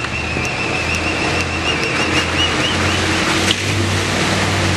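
Jeep Grand Cherokee's 5.2-litre V8 under heavy throttle, pushing through deep mud and snow with the tyres churning, and working harder about three and a half seconds in. A high, wavering whistle-like tone sounds over it until then and stops with a sharp click.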